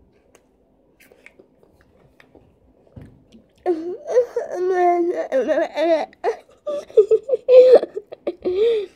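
A boy's loud wordless vocal cries, wavering and wailing in short broken bursts, starting about three and a half seconds in, as he reacts to the burn of Flamin' Hot fries.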